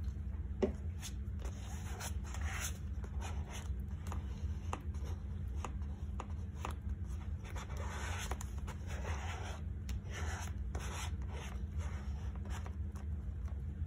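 Paper being handled and rubbed on a journal page: irregular rustles and rubbing strokes, over a steady low hum.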